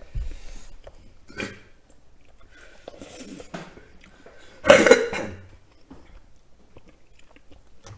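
A person coughing, loudest once about five seconds in.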